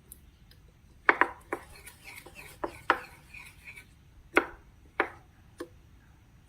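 About eight irregular sharp taps and clicks of slime-making tools and containers being handled, the loudest about a second in and again past the middle, with a faint rustle between them.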